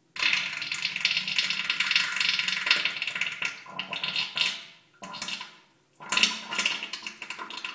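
Diarrhoea sound effect: wet, spluttering, liquid bursts. One long burst runs for about three and a half seconds, then three shorter ones follow with brief pauses between.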